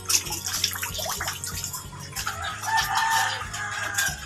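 A rooster crowing once, a long held call in the second half, over the rustle of leaves and stems brushing past as someone walks through garden undergrowth.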